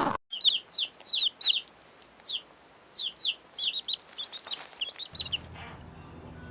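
Chickens peeping: a quick series of short, high, falling peeps, often in pairs, stopping about five seconds in. A faint low hum follows.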